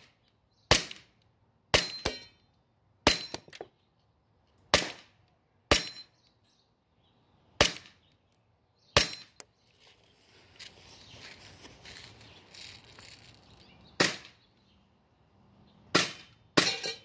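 Airsoft Glock 18C pistol firing about a dozen single shots at uneven intervals, with a pause of several seconds in the middle. Several shots are followed by a short high ping as BBs strike the plates of a Texas Star spinner target.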